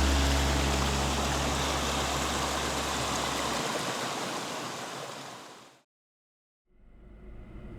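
Rushing water, a steady loud wash, under a deep held low note that stops about three and a half seconds in. The water fades out to silence at about six seconds, and a low vehicle rumble fades in near the end.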